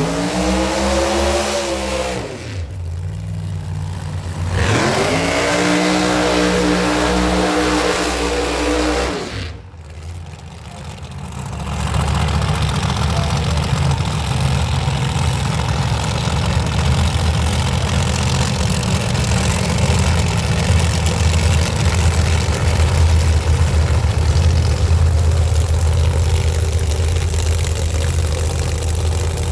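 Race car engines: one falls away in pitch in the first two seconds, and another rises in pitch and holds from about four and a half to nine seconds. After a brief dip, a big engine idles with a steady, loud, lumpy low rumble.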